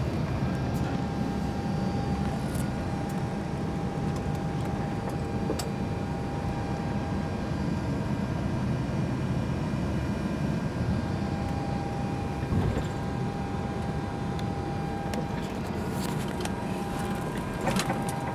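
Steady noise inside an Airbus A321 cockpit while it taxis: the engines at idle and the ventilation running, with a faint steady tone and a few light clicks.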